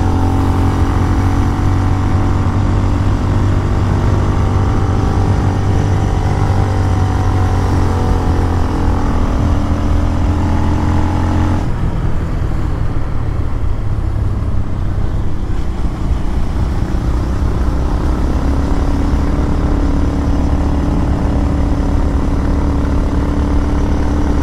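Motorcycle engine running under way, with a steady low rumble; the engine note changes abruptly about halfway through.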